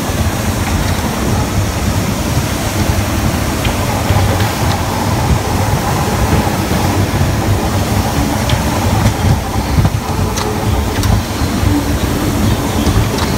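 Steady rumble and rattle of an arcade ride-on go-kart rolling over the hard floor of an indoor track, heard from the driver's seat, with a few light knocks.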